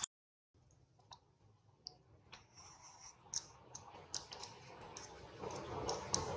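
Silence for about half a second, then faint, irregular clicks and ticks, roughly one a second, over a low background hiss that grows a little toward the end.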